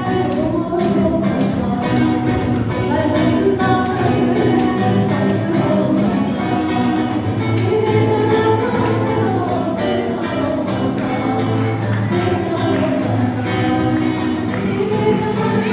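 Music: a song with singing over instruments and a steady, even beat.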